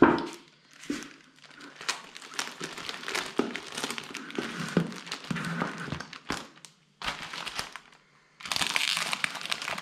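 Clear plastic sheeting and plastic wrap crinkling and crackling as gloved hands bend and press a resin-coated plastic sheet into a lampshade shape. The crackles come in irregular bursts, pause briefly about seven seconds in, then turn louder and denser near the end.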